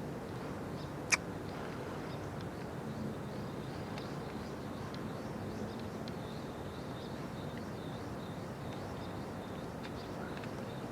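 Steady outdoor background noise with faint, scattered bird chirps, and one sharp click about a second in.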